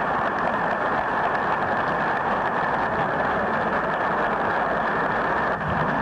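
Large audience applauding steadily, a dense even clatter of many hands, sounding dull and muffled, with a brief dip near the end.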